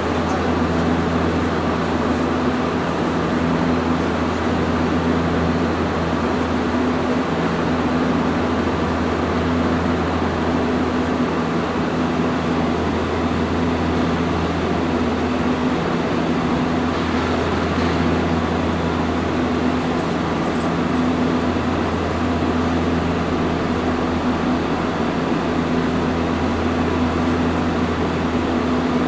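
Inside a Hiroshima Electric Railway 800 series tram: a steady mechanical hum from the car's electrical equipment and fans. Low tones hold an even pitch, and one tone cuts in and out every second or two.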